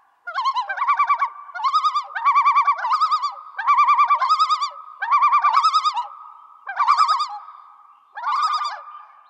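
Bird calls: about seven or eight rapid quavering, warbling phrases, each under a second, over a faint steady tone.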